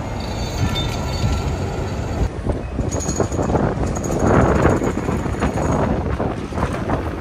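City buses passing close in street traffic: a steady hiss of tyres and road noise that swells as a bus goes by about four to five seconds in.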